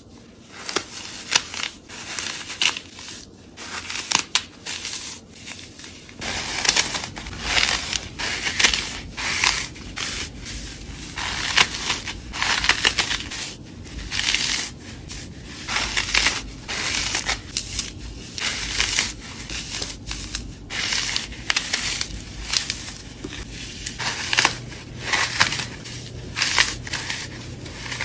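Green floral foam blocks crushed and crumbled by hand: irregular crunching and crackling that comes in bursts as the foam breaks apart.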